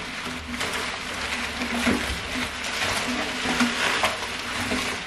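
Clear plastic bubble-wrap packaging crinkling and rustling as it is pulled out of cardboard shipping boxes, with scattered crackles throughout.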